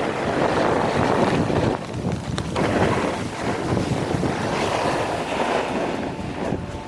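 Wind buffeting the camera microphone as a snowboard slides and scrapes over groomed snow, a rough rushing hiss that eases off near the end as the rider slows.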